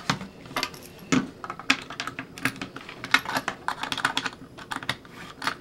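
Irregular light clicks and taps of small hard plastic parts being handled: the hollow plastic body shell of a toy R/C car knocked and fingered, with small metal screws among it.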